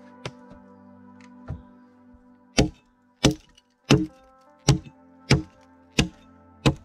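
Small axe chopping into a log, splitting off flat slabs: about seven sharp, steady blows roughly two thirds of a second apart from just before the middle, after a couple of lighter knocks, over background music.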